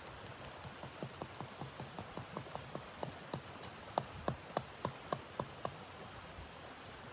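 Wood fire crackling and popping: a run of sharp pops and snaps, thickest and loudest in the middle, over a steady hiss.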